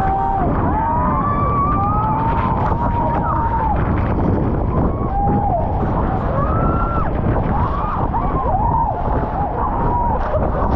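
Heavy, steady noise of a waterfall pouring down onto an open boat, with spray beating on the microphone. Passengers scream and shriek over it in many short rising and falling cries.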